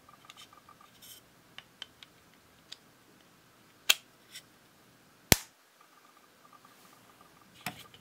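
Huawei FreeBuds 4i charging case handled, with light plastic taps and ticks, then its hinged lid clicking open a little under four seconds in and snapping shut about a second and a half later, the loudest click. A softer click comes near the end.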